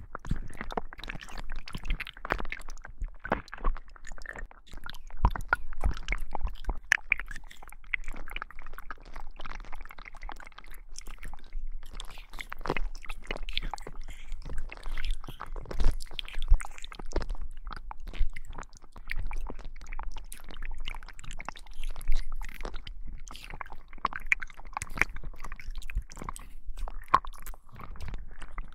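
Slime squished and kneaded close to binaural microphones: a dense, irregular run of wet squelches and crackling pops.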